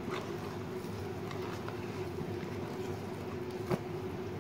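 Hands kneading soft, crumbly flour dough in a plastic bowl: faint squishing with a sharp click against the bowl about three and a half seconds in, over a steady background hum.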